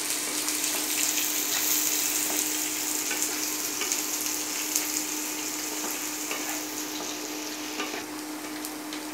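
Chopped onion sizzling in hot oil with whole spices and cumin in a nonstick kadai, stirred with a spatula that scrapes and taps the pan now and then. The sizzle eases a little near the end, and a steady low hum runs underneath.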